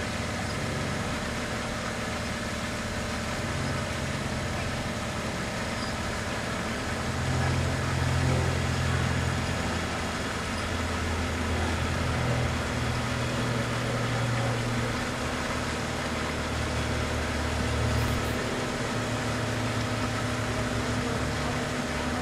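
Large-scale (1:29) garden-railway freight train running on its track, its metal wheels making a steady rolling noise. A low hum swells from about seven seconds in and drops away near eighteen seconds.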